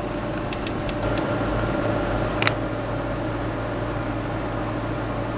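Steady road and engine noise inside a moving car's cabin, with a few light ticks about half a second to a second in and one sharp click about two and a half seconds in.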